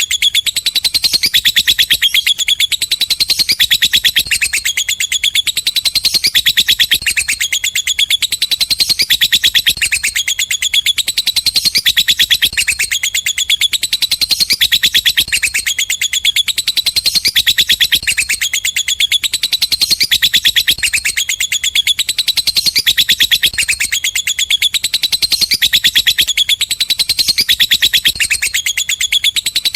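Lovebird giving its long, unbroken ngekek song: a loud, rapid, high-pitched chattering trill that swells and dips about every second and a half.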